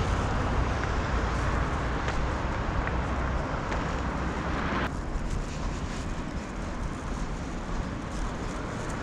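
Steady vehicle noise: a low rumble with a hiss over it. The hiss drops away suddenly about five seconds in.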